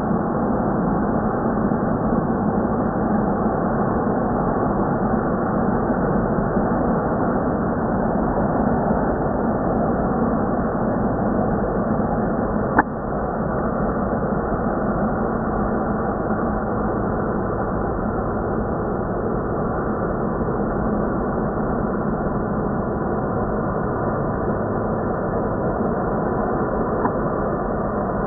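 Airbus A350-900's Rolls-Royce Trent XWB turbofans running at taxi power as the airliner rolls past, a steady drone. A single sharp click about halfway through.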